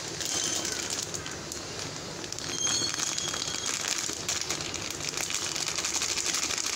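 Dense rustling and crackling from a hand tossing and mixing shredded raw potato with gram flour in a steel bowl, with crinkling from the flour's plastic packet as flour is added.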